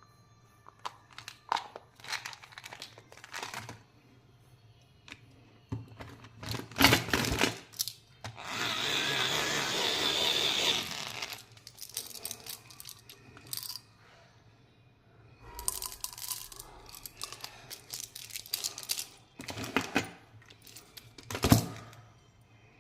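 Candy packaging being handled and opened by hand: plastic wrappers crinkling and tearing, with small clicks and taps. One long tearing sound lasts about three seconds in the middle.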